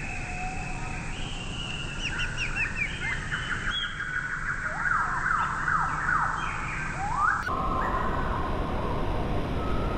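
Birds calling in a rapid series of short, falling chirps and whistles. About seven seconds in, the recording cuts abruptly to a different sound: a steady, slightly wavering held tone.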